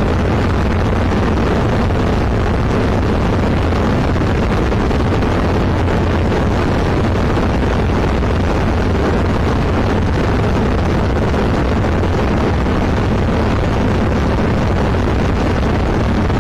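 Zenith CH701 light aircraft's engine and propeller running steadily in cruise flight, with wind noise, as heard inside the cockpit.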